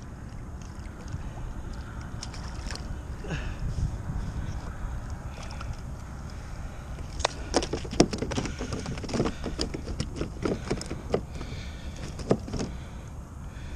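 Steady low rumble of wind and water around a plastic kayak, then a run of sharp knocks and clicks from about seven seconds in as a freshly landed speckled trout is handled in the angler's lap.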